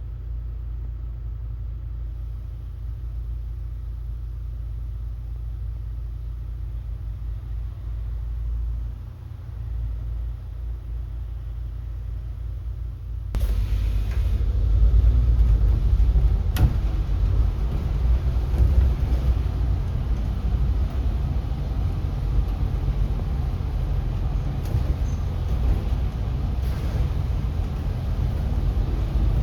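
City bus heard from inside the passenger cabin: a steady low engine rumble, then about halfway through the noise jumps suddenly louder and fuller, with a sharp click a few seconds after.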